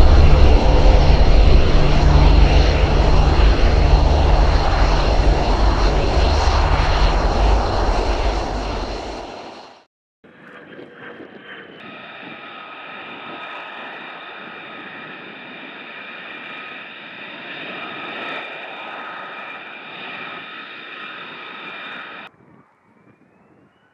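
Jet aircraft noise: a loud, heavy rumble that fades out about nine seconds in, then, after a short gap, the quieter steady high-pitched whine of F-35 jet engines running on the ground, which cuts off suddenly near the end.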